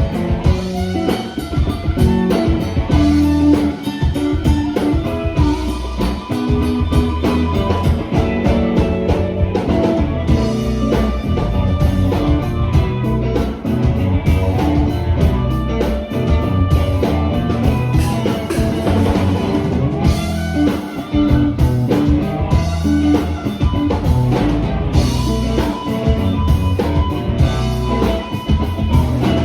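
Blues band playing an instrumental passage, electric guitar over a steady drum-kit beat.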